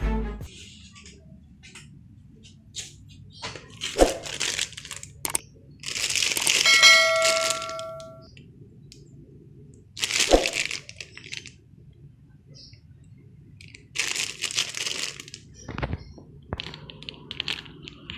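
Intermittent crackling, rustling bursts of noise and sharp clicks. A short ringing ding sits inside the longest burst, about seven seconds in.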